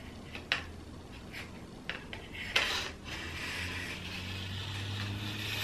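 The forehand grip of a Benjamin Armada air rifle being eased back onto the gun: a few light clicks, then a continuous scraping rub from about three seconds in as the tight-fitting grip rubs along the rifle.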